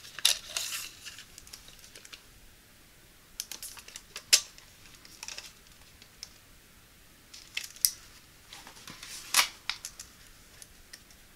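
Retractable tape measure being pulled out and handled across a foam pillow: scattered sharp clicks and rattles of the metal blade and its case, with soft rustling between them.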